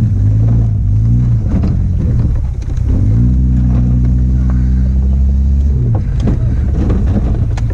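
Car engine running with uneven revs, then holding a steady pitch for a few seconds, with a few sharp knocks near the end.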